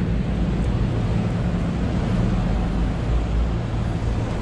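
Steady road-traffic noise with a continuous low engine hum from nearby motor vehicles.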